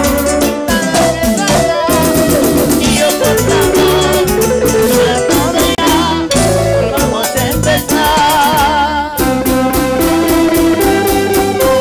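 Live Peruvian cumbia band playing: a fast, steady percussion beat with shaker-like rattling, bass and keyboard under a melody that wavers in pitch, with group singing at times.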